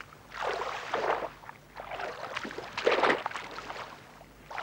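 Canoe paddle strokes splashing in the water: two surges of splashing about two and a half seconds apart, the second the louder.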